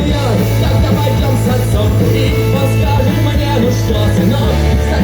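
Rock music with a heavy, sustained bass line and singing; the bass shifts to a new note near the end.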